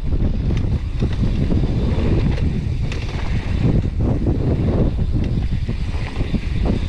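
Strong gale-force wind buffeting an action camera's microphone, a dense, gusting rumble, with scattered knocks and rattles from a mountain bike riding over rough trail.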